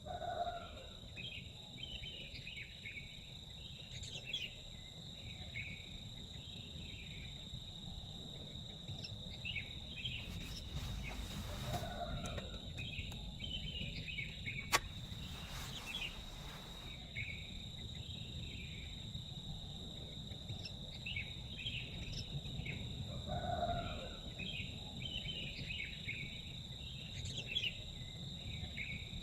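Forest ambience: insects droning on one steady high note, with many short chirping calls over it and a few lower calls. There are two brief bursts of hiss partway through and a single sharp click near the middle.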